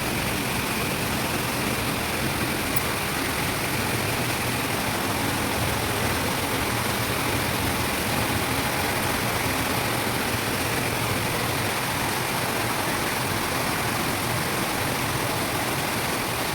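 Steady, even rushing of water from heavy, continuous rain.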